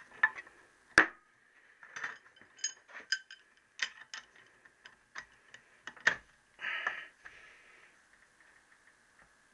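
Irregular metal clicks and clinks of a socket and bar being fitted and worked on a bolt in a Triumph 650 crankshaft's flywheel, with sharper knocks about a second in and about six seconds in and a short rasp near seven seconds.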